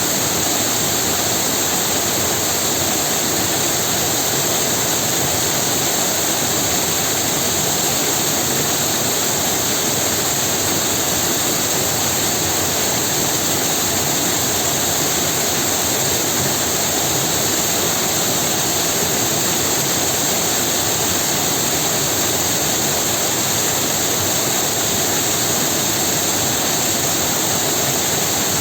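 Waterfall: a steady, unbroken rush of falling water that stays even throughout, with a bright hiss in the upper range.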